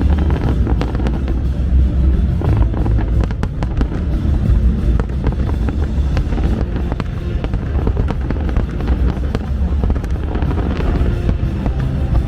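Fireworks bursting and crackling in quick succession over loud music for the fireworks show, with a heavy low rumble throughout.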